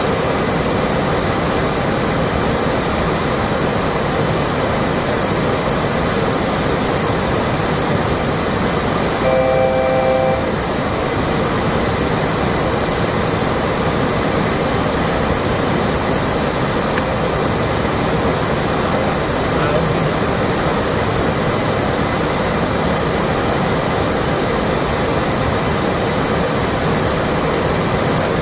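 Steady rushing of airflow and engine noise on the flight deck of a Boeing 737-400 Classic during the approach. About ten seconds in, a short cockpit chime of several tones sounds for about a second.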